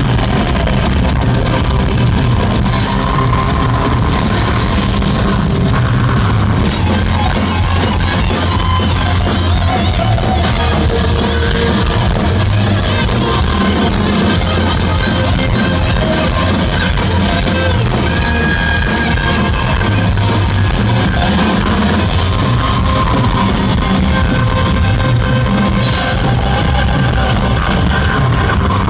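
Heavy metal band playing live and loud: distorted electric guitars over a driving drum kit.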